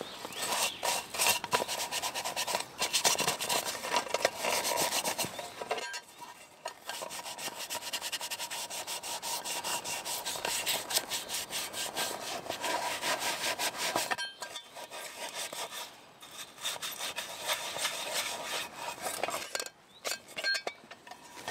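Rapid rubbing and scraping strokes, many a second, as gloved hands scrub a small black pot, in runs broken by a few short pauses.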